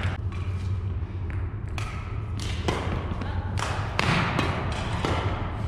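Badminton play on a hardwood gym floor: a string of sharp, irregular knocks from rackets hitting shuttlecocks and shoes striking the floor, over a steady low hum.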